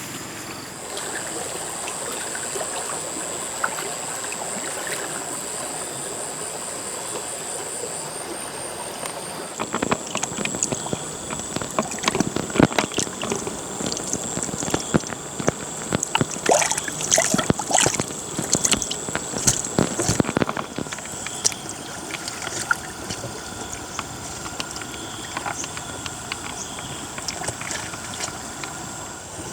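Water trickling and splashing, with a steady high-pitched insect drone. For about ten seconds in the middle, a run of sharp splashes and knocks.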